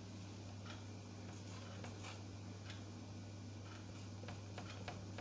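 Marker pen writing on a whiteboard: short, faint taps and squeaks as each letter is drawn, coming thicker near the end. A steady low hum runs underneath.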